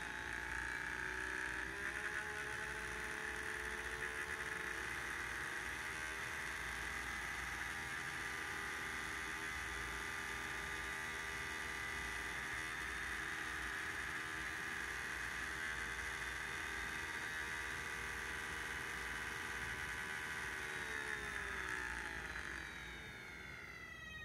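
Model railcar's electric motor and gears running under a microcontroller's PWM drive, whining with several steady tones over a gear buzz; the tones step up in pitch in the first few seconds as it mimics a 'do-re-mi-fa' inverter. About 21 seconds in, the whine glides downward and fades as the drive frequency and voltage are lowered to decelerate.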